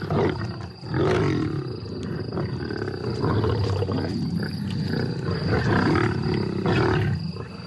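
Lions growling continuously while feeding together on a carcass: aggressive squabbling over the kill.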